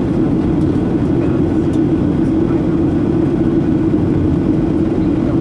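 Steady cabin drone of a Boeing 737-800 in flight, heard from a window seat by the wing. It is the CFM56-7B turbofans together with airflow over the fuselage: a constant low hum with rumble beneath, unchanging throughout.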